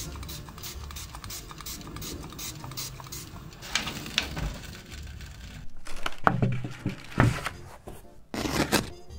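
Close, rapid crackling and rustling from baguettes baking on parchment paper in an oven. Louder knocks and scrapes come from about six seconds in.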